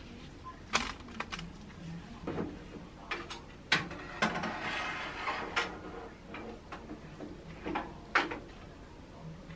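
Kitchen handling sounds: a few clicks and knocks, then a metal mesh basket scraping as it is slid onto the rack of a countertop air fryer oven, and the oven's glass door shut with a knock near the end.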